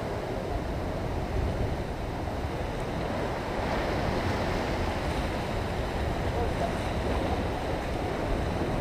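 Sea surf washing and breaking against the rocks in a steady rush, with wind buffeting the microphone.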